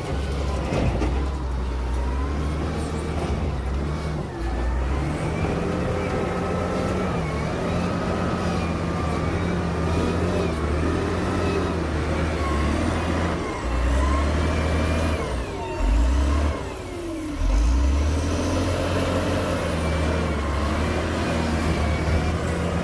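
Heavy diesel engine of earthmoving machinery running, with its pitch wandering up and down and a few louder surges a little past halfway.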